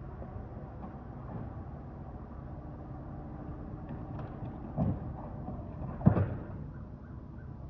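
A steady low rumble with two knocks, about five and six seconds in, the second louder.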